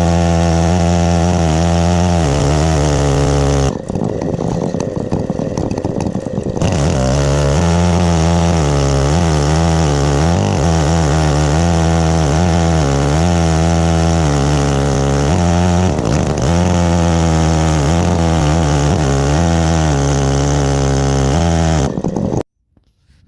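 105cc Stihl 070 clone chainsaw running at full throttle, ripping a pine log on an Alaskan chainsaw mill, its pitch wavering under load. About four seconds in, the revs drop off for about three seconds before returning to full. The sound cuts off suddenly near the end.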